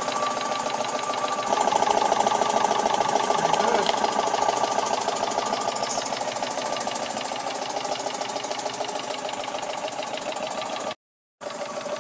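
Jensen #50 live-steam model engine running steadily with a fast, even clatter, its speed held constant by its governor. The sound drops out abruptly for about half a second near the end.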